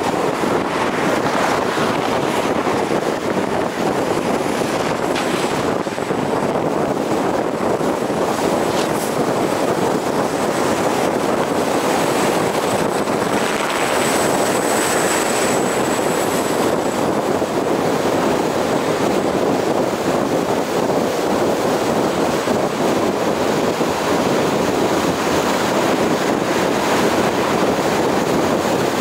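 Steady road noise of a car driving at highway speed: tyre rumble and wind rush.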